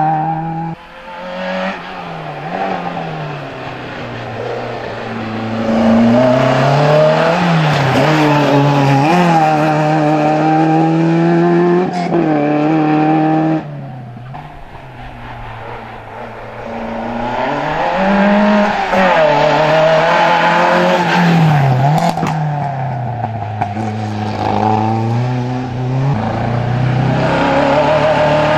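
Racing hatchback's engine at full throttle, rising in pitch and dropping sharply again and again as it is driven hard through the gears and corners. The sound drops away abruptly about halfway through, then the engine builds again as the car approaches.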